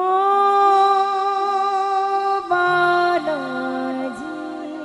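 A woman singing a Hindi–Rajasthani devotional bhajan to Hanuman, opening with a long held note of about two and a half seconds, then stepping down in pitch with a gliding turn, over quiet instrumental accompaniment.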